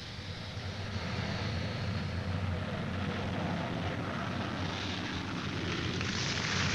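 Jet aircraft engines running, a steady deep rumble with a hiss above it that slowly grows louder.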